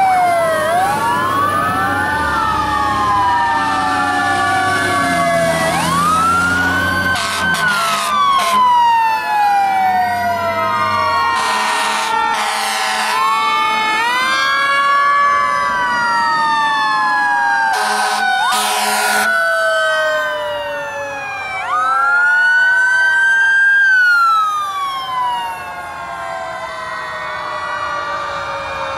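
Several fire-truck and emergency-vehicle sirens wailing at once, their pitches rising and falling and overlapping as the trucks drive past, with diesel engines rumbling underneath. Short air-horn blasts, mostly in pairs, cut in about seven, twelve and eighteen seconds in.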